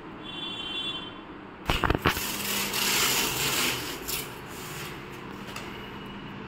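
Masking tape being pulled off its roll and pressed onto a wall: a few sharp knocks about two seconds in, then a rasping peel of tape lasting about two seconds, followed by softer rubbing.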